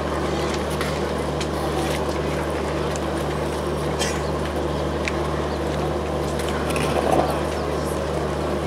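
Diesel locomotive idling with a steady low drone, under the chatter of a crowd of passengers, with a few scattered clicks and knocks.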